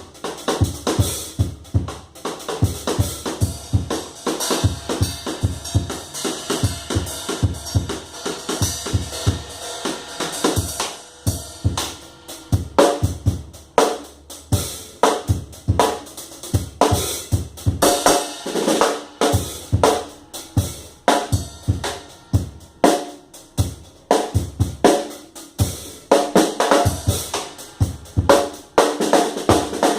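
A drum kit played in a steady, fast groove: bass drum, snare and cymbal strikes several times a second, with cymbals ringing over them.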